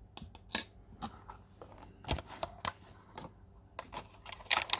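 Hard plastic clicking and tapping as a red plastic toy-car container is handled and opened by hand, with small objects set down on a glass tabletop. The clicks come irregularly and bunch together near the end.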